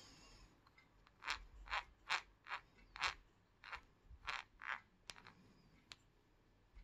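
Losi 8ight 4.0 1/8 buggy differential, serviced and filled with silicone oil, being turned by hand at its outdrive cups inside the plastic diff housing. About eight short scraping clicks come from about a second in to about five seconds in, followed by a few faint ticks.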